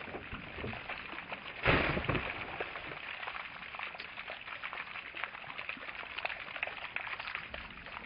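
Water splashing and spilling from plastic water jugs just burst by a rifle bullet, with a louder splash and thud about two seconds in, then dripping and trickling.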